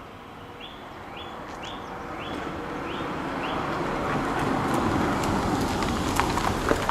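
Steady vehicle noise that grows louder over the first four seconds, with a run of six short rising chirps, about two a second, in the first few seconds and a few sharp clicks near the end.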